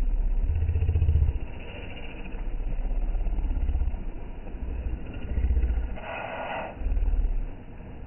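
Wind buffeting the phone's microphone in irregular gusts of low rumble, over the faint wash of small waves on the shore boulders. A short hiss about three-quarters of the way through.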